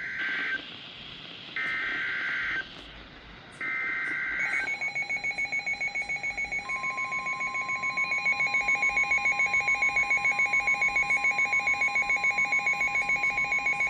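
Emergency Alert System header: three short bursts of warbling SAME data tones, each about a second long. They are followed by the alert's attention signal, a rapidly pulsing electronic tone that a steady single tone joins about two seconds later, both sounding on without a break.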